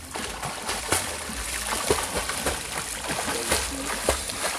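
Water splashing and sloshing in irregular strokes as a person swims through a river channel.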